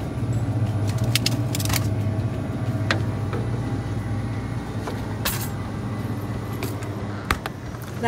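Steady low hum of refrigerated freezer cases, with a few light clicks scattered through.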